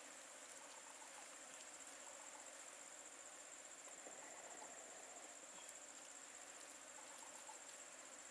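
Faint, steady high-pitched insect chirring, typical of crickets, with a few faint short chirps in the background.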